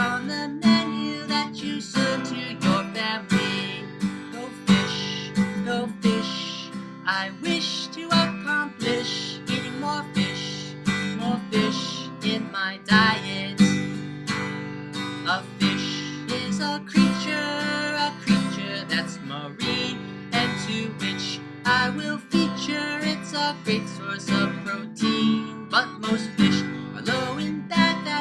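Background music: strummed acoustic guitar playing at a steady rhythm.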